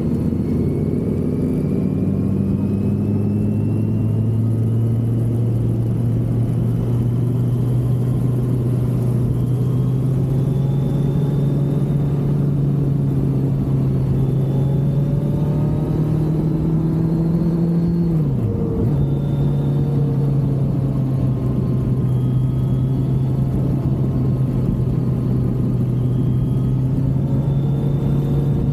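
Kawasaki Z900 inline-four engine under way. Its note rises steadily as the bike gains speed in one gear, drops sharply at an upshift about two-thirds of the way through, then holds steady, over constant wind and road noise.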